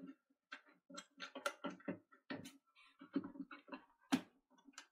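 Irregular run of small plastic clicks and taps as a Hive heating receiver is handled and fitted back onto its wall back plate, with one sharper click about four seconds in.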